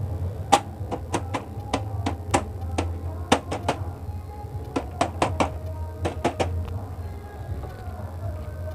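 Irregular plastic clicks and knocks from an Epson L380 printer's housing as it is handled and pressed into place. The clicks come thickly for about the first seven seconds and thin out near the end, over a steady low hum and background music.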